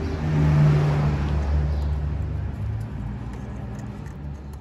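A motor vehicle going by, its low engine hum loudest about half a second in and then fading away.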